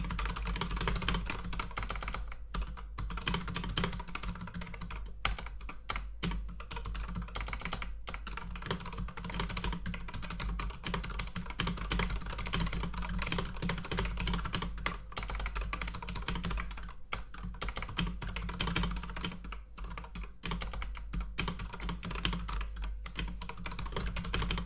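Fast, continuous typing on a computer keyboard during a typing-speed test: a steady stream of key clicks with a few brief pauses.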